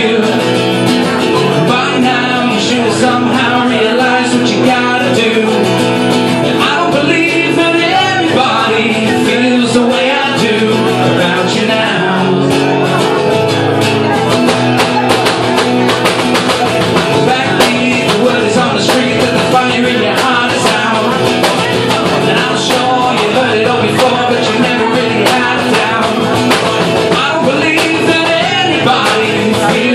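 Live solo performance: a man singing into a microphone while strumming a guitar in a steady rhythm.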